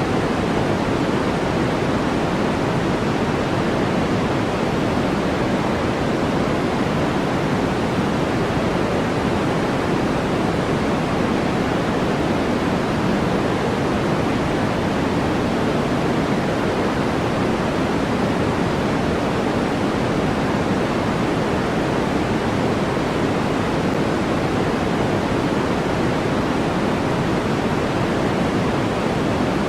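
Steady, unchanging synthetic noise from a white-noise sleep track: an even hiss with no events in it, heavier in the low and middle range than in the highs.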